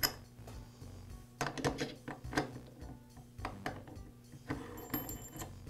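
Light metallic clicks and clatter of chainsaw clutch parts being fitted by hand onto the crankshaft: first a flat washer, then the spring-loaded centrifugal clutch. The sound comes as a few short taps scattered through the stretch.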